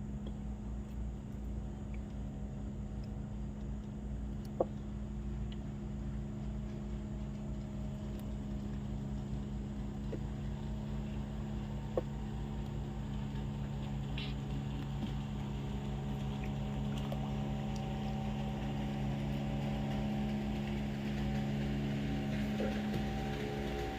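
Motorboat engine running steadily on the river, growing a little louder near the end. Two sharp clicks stand out, about a third and halfway through.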